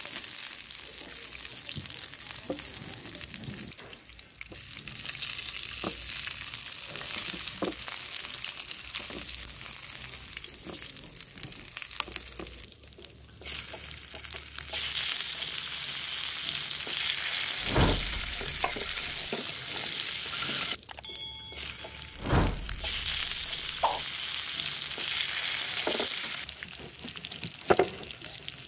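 Hot oil sizzling and spitting in a frying pan as whole boiled eggs and vegetables fry, the hiss dipping briefly now and then. A few sharp knocks of a spatula against the pan, two of them heavier.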